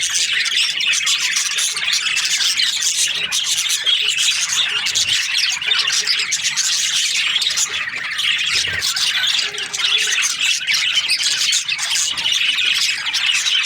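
A colony of budgerigars chirping and squawking, many birds calling over each other in a dense, unbroken chatter.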